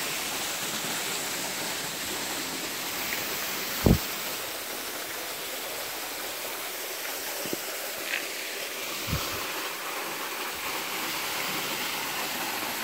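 Steady rushing of a canyon stream and small waterfall. A brief low thump about four seconds in, with softer ones around seven and nine seconds.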